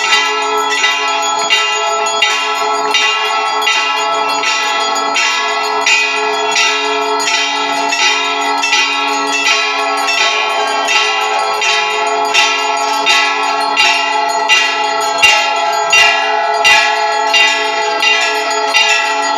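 Brass temple bells ringing steadily during aarti, struck about three times every two seconds, their tones overlapping into a continuous ring.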